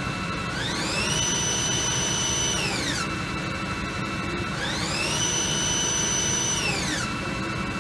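Haas GR 712 gantry router's 20 HP spindle whining as it speeds up and slows down between about 2,000 and 4,500 RPM, twice: the pitch climbs over about half a second, holds for over a second, then drops back and holds low before the next climb.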